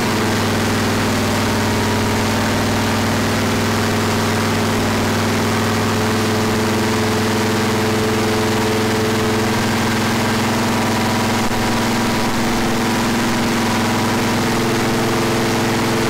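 Freshly rebuilt 461 cubic inch Pontiac V8 running at a steady idle on an engine dyno, on its very first run after the rebuild.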